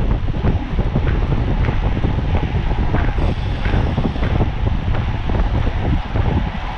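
Loud, steady wind noise buffeting the microphone of a camera carried on a road bike at race speed. It is heaviest in the low end.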